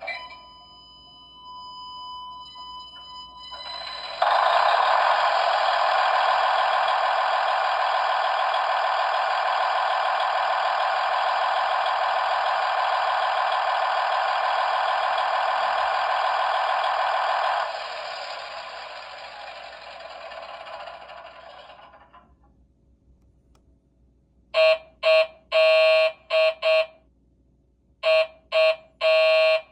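A SEIKO radio-controlled alarm clock plays recorded railway sound effects through its speaker. A short steady chime is followed by a loud electric bell ringing for about thirteen seconds, which then fades away. Near the end come two groups of short, rapid beeps.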